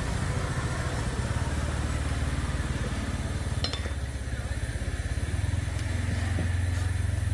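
A motor running steadily with a low, rough rumble, growing louder about five seconds in.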